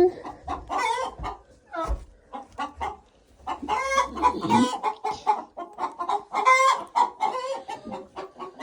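Laying hens clucking and calling in a string of short, repeated notes throughout.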